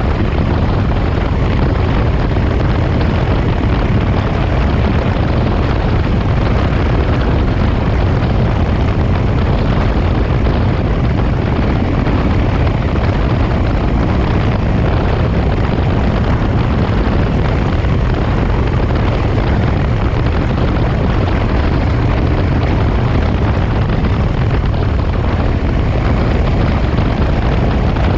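1967 Triumph T100R Daytona's 500cc parallel-twin engine running steadily at cruising speed while riding, with wind noise.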